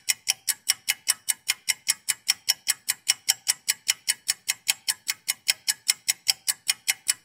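Rapid, even ticking at about five ticks a second, a clock-style ticking sound effect.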